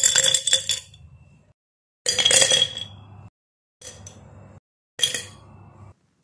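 Pencils, paintbrushes and pens dropped into glass jars: four separate clinks against the glass, each ringing briefly and rattling as the items settle.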